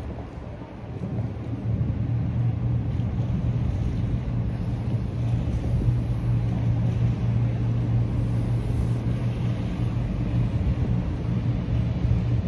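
Boat engines on the river giving a steady low drone that swells about a second in as the boats pass close by.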